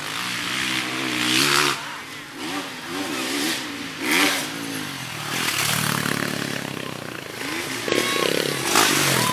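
Small dirt bike engine revving, the throttle blipped repeatedly so the pitch rises and falls again and again.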